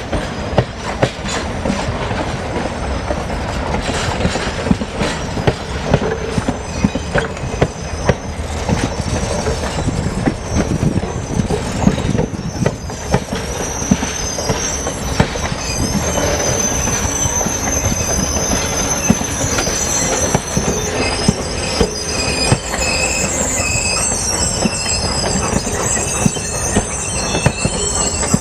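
Steel wheels of a train rolling slowly through the curve of a wye, clicking over rail joints, with a high flange squeal against the rail that builds from about halfway through.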